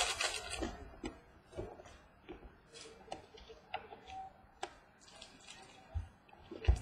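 Trading cards being handled and flipped through one at a time: a short rustle of card stock at the start, then scattered light clicks and taps, with two soft bumps near the end.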